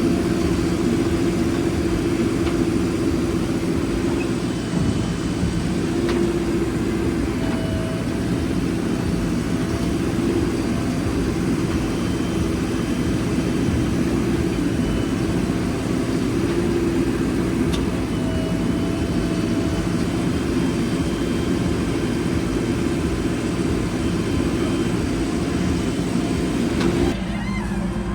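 JCB 4DX backhoe loader's diesel engine running steadily under working load while loading soil, its pitch shifting slightly now and then. The sound changes abruptly near the end.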